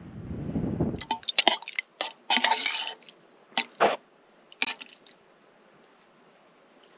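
Wind buffeting the microphone for about a second, then a run of sharp clicks and crinkles lasting about four seconds.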